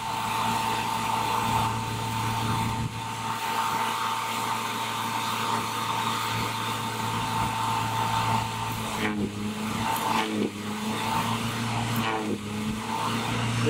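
Electrical arc on a 7,200-volt demonstration line, drawn to the tip of an insulated stick, giving a steady buzz with hiss. Two sharp snaps come about ten and twelve seconds in.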